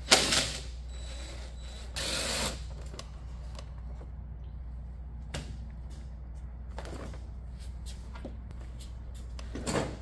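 Hand-work noises from a three-wheeler's front end: a sharp knock at the start, a half-second scraping rasp about two seconds in, then scattered light clicks and another knock near the end, as the plastic front fender and fork parts are worked loose. A low steady hum runs underneath.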